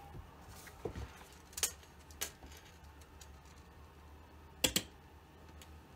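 A few scattered light clicks and taps of a plastic garden-fence panel and wooden frame being set down and handled on a granite countertop, the loudest a quick double click near the end.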